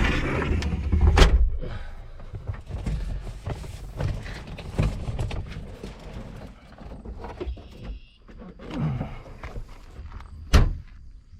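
Scattered thunks and clicks from handling the mini excavator's cab, likely its windshield and door. A low rumble and a sharp knock come about a second in, and another sharp knock comes near the end.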